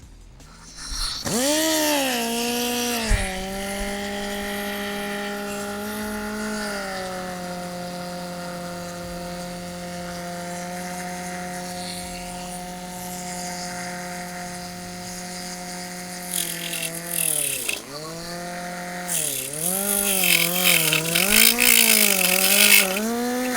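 Pneumatic cut-off tool spinning up to a steady high whine about a second in, then biting into rusty car-body sheet steel near the end: its pitch sags and recovers again and again under a harsh grinding hiss.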